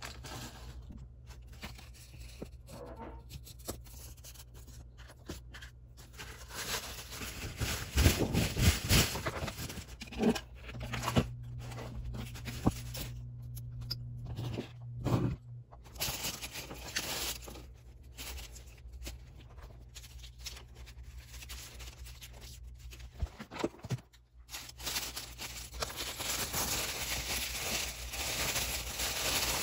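Tissue paper crinkling and rustling as it is handled and wrapped, in irregular bursts, with a few louder crumples about a third and halfway through and denser crinkling near the end.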